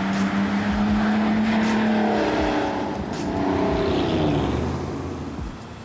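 Muffler-deleted BMW Z3 inline-six exhaust driving past: the engine note climbs, then drops in pitch about halfway through as the car passes and fades away.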